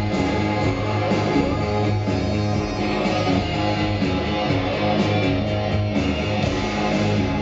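Live rock band playing: electric guitars, bass, drums and keyboards in a steady, continuous passage, heard from within the audience in a concert hall.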